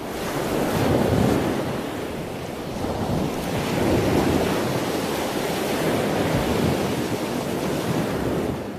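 Ocean surf washing onto a beach: a steady rush of breaking waves that swells and eases a couple of times, fading out near the end.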